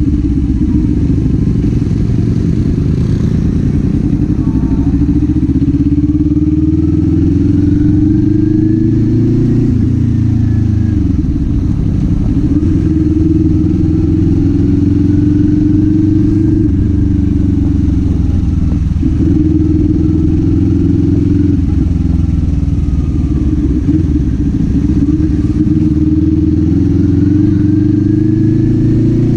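Kawasaki Z400 parallel-twin engine and exhaust under way, its note climbing steadily through the revs and dropping back a few times as it changes gear, over a steady low rumble.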